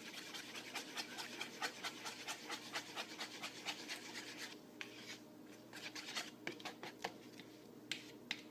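Egg, feta and half-and-half mixture being stirred with a utensil in a disposable bowl: quick scraping strokes, several a second, that thin out about halfway through.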